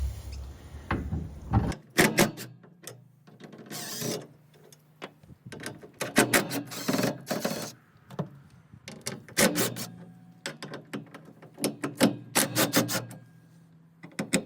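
A tool turning a T40 Torx bit backs out the screws holding the bed rail, making about five bursts of clicking and rattling a couple of seconds apart.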